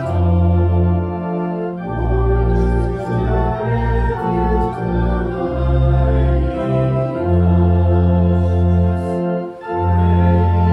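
Organ playing slow, sustained chords over held bass notes that change every second or two.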